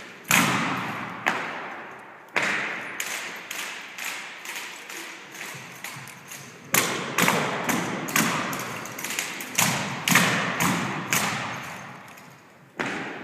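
Drill rifles being handled and struck during a rifle drill routine: a run of sharp knocks and thuds at irregular intervals, each followed by a long echoing decay.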